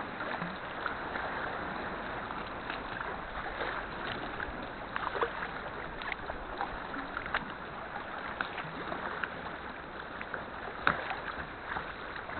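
Kayak being paddled on the sea: small, irregular splashes and drips from the paddle blades over a steady wash of water.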